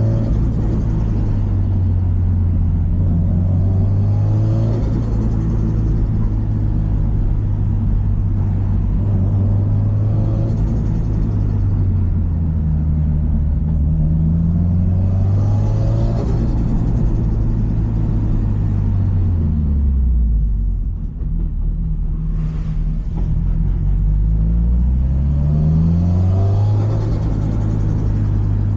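Subaru Impreza WRX STI's turbocharged EJ207 2.0-litre flat-four running under load on a mountain road. The engine pitch climbs repeatedly as it revs up, around 3, 13 and 24 seconds in, and falls away about 18 to 21 seconds in as it eases off, with a brief dip in level.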